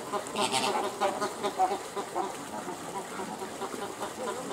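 Flock of flamingos calling: a continuous low chatter of many short, overlapping calls.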